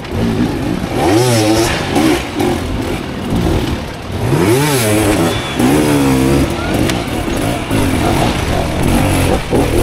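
Hard enduro dirt bike engines revving hard and backing off over and over, the pitch swinging up and down several times as riders work their bikes up a steep hill.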